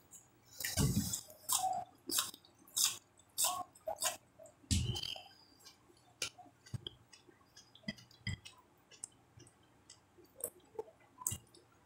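Close-up chewing and wet mouth smacking as a mouthful of fish stew and rice, eaten by hand, is chewed. The loudest smacks come about one second in and again around five seconds, then sparser, softer clicks follow.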